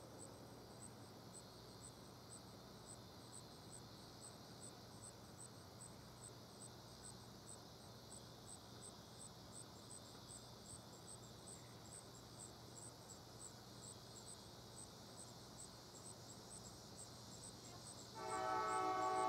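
Insects chirping steadily in a faint rural background, about two or three high chirps a second. About a second before the end, a distant locomotive air horn starts blowing a steady multi-note chord, from Amtrak #383's IDTX Siemens Charger with a Nathan K5LA horn whose 4A chime is logged as dead.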